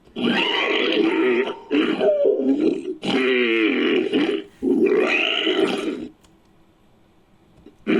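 Made-up dinosaur calls for a Psittacosaurus–Stygimoloch hybrid, pieced together from fan-made Psittacosaurus and Stygimoloch sound effects. Four calls follow in quick succession, each a second or so long, the third with a wavering pitch. After a pause of almost two seconds, a fifth call begins at the end.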